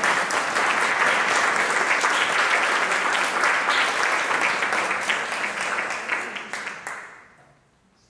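Audience applauding, many hands clapping steadily, then fading out about seven seconds in.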